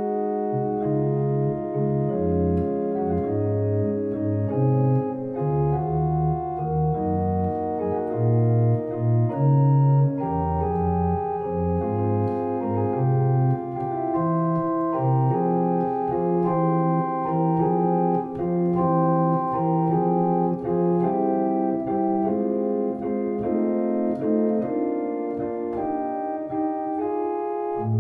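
Two-manual electronic organ playing a slow piece in sustained chords, with a moving bass line and the notes changing every half second to a second.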